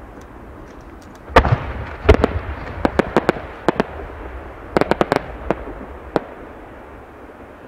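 Aerial fireworks shells bursting. Two heavy booms come about a second and a half and two seconds in, followed by quick clusters of sharp crackling reports, all over a low rumble.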